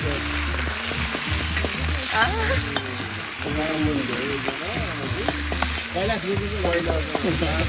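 Food sizzling as it fries, a steady hiss that runs on without a break.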